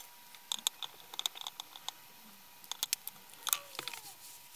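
Irregular sharp plastic clicks and taps, with a quick cluster about three and a half seconds in: a small screwdriver prying a plastic hinge cap off an AEMC SL261 clamp-on current probe while the probe is handled.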